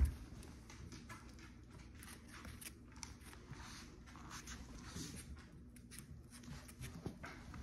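Pit bull puppy's paws and claws lightly ticking and scratching on a wood floor as it walks, with one thump at the very start.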